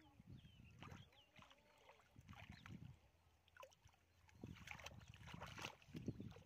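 Hands groping and sloshing through shallow muddy water, in uneven bursts of soft splashing that grow louder and busier in the last two seconds.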